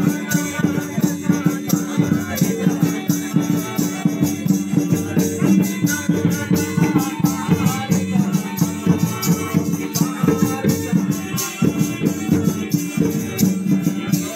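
Live Santali folk music from a small band: string instruments holding steady tones over a drum and a rhythmic rattling, jingling beat.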